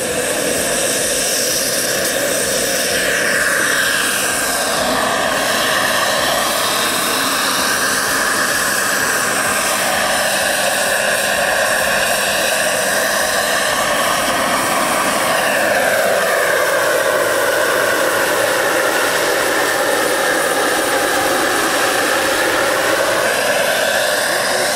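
Radio-controlled scale model Hughes 500 helicopter lifting off and flying: a steady high whine of its engine and rotors, the pitch gliding up and down several times as it manoeuvres.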